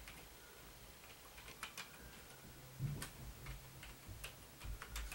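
Computer keyboard keys clicking in an irregular run of keystrokes while someone types a console login, with one heavier knock about three seconds in.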